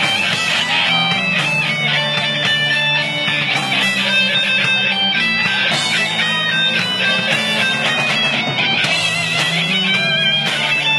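Live metal band playing an instrumental passage: electric guitars, bass guitar and drums, with fast-moving guitar lines on top.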